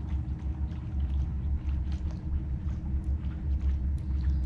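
Small boat's motor running steadily at low speed: a low rumble with a constant hum, and faint scattered ticks over it.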